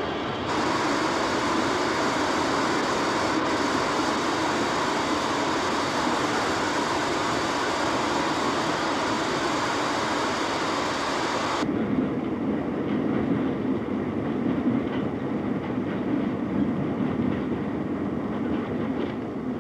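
Steam-hauled express train running, a steady rushing noise full of hiss. About twelve seconds in it changes abruptly to a duller, lower rumble with a rhythmic clickety-clack of the wheels.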